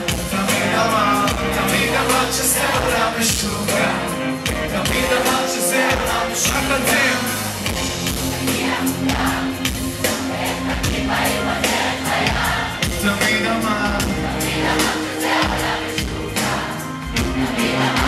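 Live Israeli hip-hop played loud through a concert PA: a steady beat and bass line with sung vocals, and a crowd singing and cheering along.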